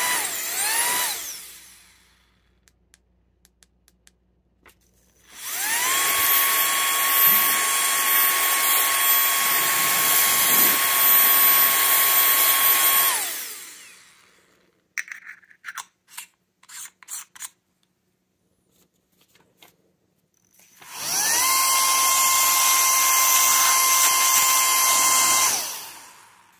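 KiCA Jetfan handheld electric air blower running with a steady high whine over the rush of air. It is switched on twice, each time spinning up with a short rising whine, holding for several seconds, then winding down. An earlier run winds down about a second in, and a few light clicks of handling come between the runs.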